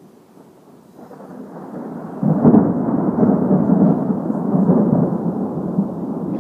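Rolling thunder: a low rumble builds about a second in, breaks louder just after two seconds, then rolls on in several swells.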